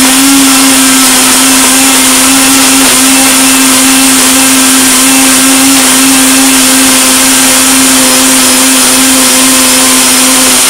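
Household electric blender running steadily, grinding banana peels, coffee grounds, eggshells and wood ash with water into a paste. The motor's pitch holds steady, then drops as it winds down when switched off at the very end.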